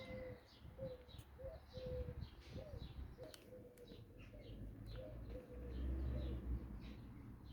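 Faint birdsong: short chirps repeating about twice a second, with a low rumble about six seconds in.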